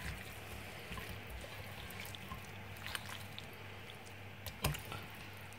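Faint wet squishing of raw chicken strips being kneaded by hand in a liquid spice marinade, with a few soft clicks and a sharper tap about four and a half seconds in.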